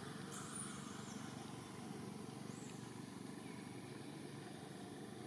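Steady outdoor background hiss with a few brief, faint high-pitched chirps.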